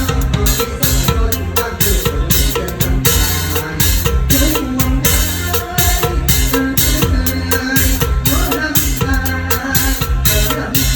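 A live band plays a mor lam–style song with the drum kit up front. Kick and snare strokes keep a steady beat over bass and melodic instruments.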